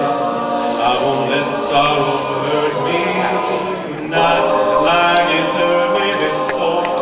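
All-male a cappella group singing in close harmony, a lead voice over backing voices with no instruments; about four seconds in, the voices swell louder.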